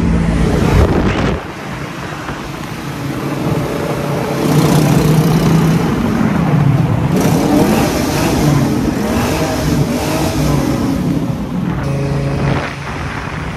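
1989 Ford Mustang fox body's engine running and being revved, its pitch rising and falling several times.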